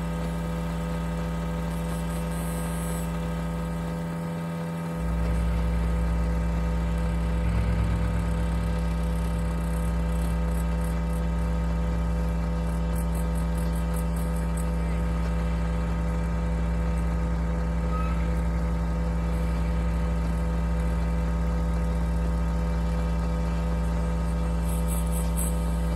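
1972 GMC Astro cab-over truck's engine idling steadily, its low rumble growing stronger about five seconds in.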